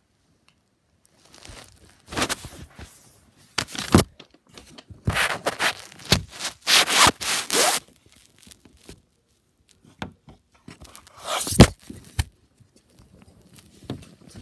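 Handling noise from a phone being picked up and moved: cloth brushing and rubbing over the microphone in irregular scrapes, with a few sharp knocks, one about four seconds in and the loudest about eleven and a half seconds in.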